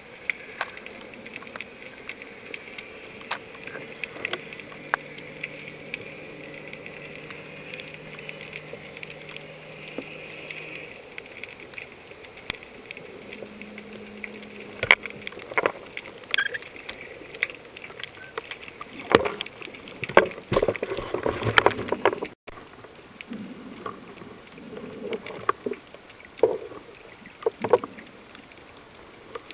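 Underwater sound picked up by a camera held below the surface: a muffled wash of water with a faint steady hum and scattered sharp clicks and knocks, more of them in the second half.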